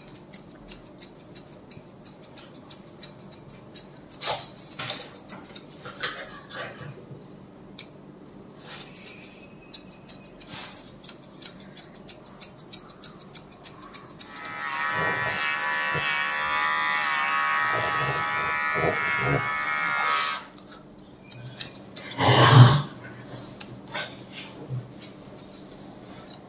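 Steel grooming scissors snipping a Shih Tzu's face and chin hair in quick, irregular clicks. Midway, a held pitched sound with many steady tones lasts about six seconds, and a few seconds later there is one short loud sound.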